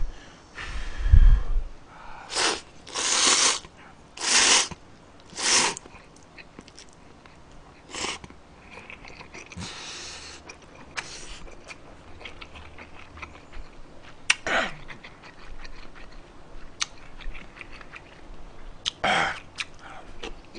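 Slurping jjamppong noodles in a series of noisy slurps, four close together in the first few seconds and then more spaced out, with chewing and light clicks in between.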